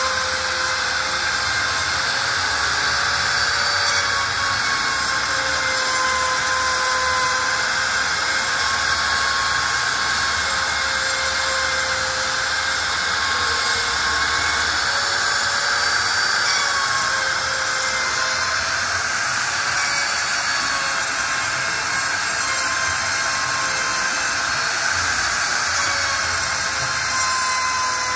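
Bosch trim router working as the spindle of a CNC gantry router, running at full speed while it engraves letters into a wooden sheet. It makes a steady high-pitched whine whose pitch wavers slightly as the bit cuts.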